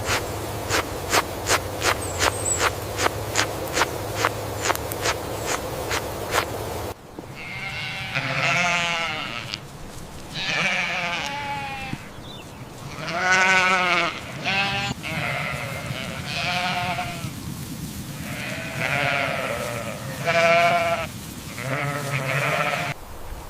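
A steady run of sharp clicks, about three a second, over a low hum, cut off abruptly about seven seconds in. Then livestock bleat repeatedly: a string of about ten wavering calls, some longer and louder than others.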